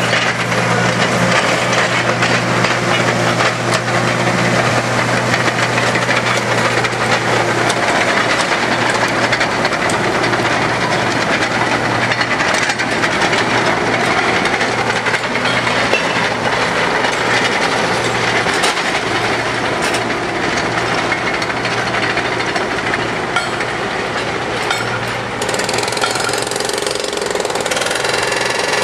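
Diesel engines of heavy track-work machines running, with a fast rattling hammering over them.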